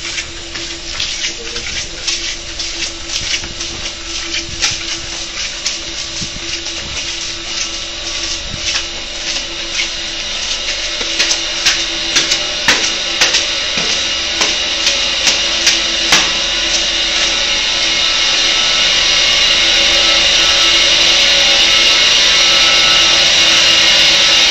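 Footsteps of a group going down stairs, sharp steps about every half second, over a steady hum. About two-thirds of the way through, a loud steady hiss and hum of mechanical-room machinery and pipework rises and takes over.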